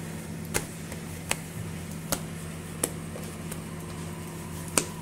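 A steady low hum with five short, sharp clicks at uneven intervals, the last one near the end.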